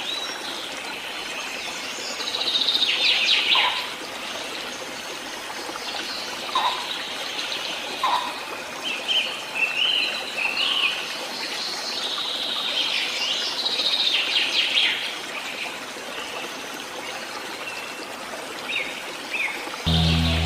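Songbirds chirping and trilling in scattered short phrases over a steady background hiss; a low sustained musical tone comes in near the end.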